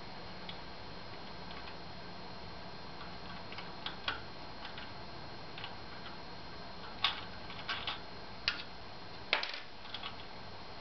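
Scattered small clicks and taps of hands handling the belt and small bolt-and-nut hardware at a 3D printer's Y-axis belt mount, most of them in the second half, over a low steady hiss.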